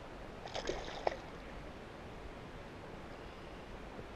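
Hooked largemouth bass splashing at the water's surface beside a kayak, a few short splashes within the first second or so, then only faint water sounds.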